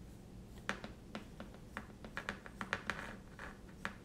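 Precision screwdriver turning a tiny screw into a small drone part by hand: a run of light, irregular clicks and scrapes beginning about a second in, over a faint steady hum.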